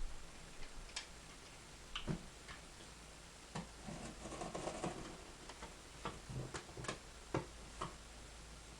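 Package being opened and handled by hand: scattered faint clicks and taps, with a short stretch of rustling or scraping about four to five seconds in.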